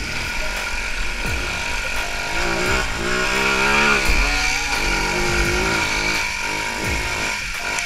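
Small off-road vehicle's engine running under the rider as it crosses a muddy dirt track. It revs up about three seconds in and eases back down after four seconds.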